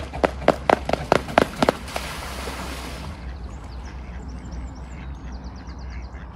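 A mute swan running across the water surface as it comes in to land, its feet and wings slapping the water about five times a second, then a hiss of spray as it settles about two seconds in. Faint high chirping follows.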